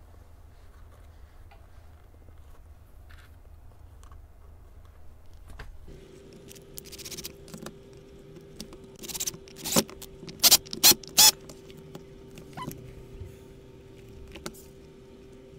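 Handling noises of a leather high-heeled shoe and a cordless drill on a wooden workbench: soft rustling and scraping, then a cluster of sharp clicks and knocks about ten seconds in. A steady hum starts about six seconds in.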